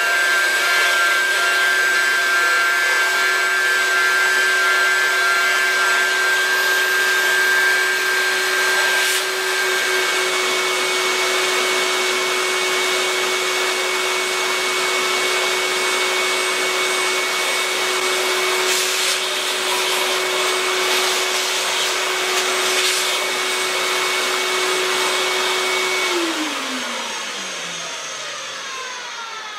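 High-speed CNC router spindle running with a steady whine as it carves a wooden relief, over the even hiss of a dust-extraction vacuum at the cutter. About three seconds before the end the spindle's pitch falls steadily as it spins down and the sound fades.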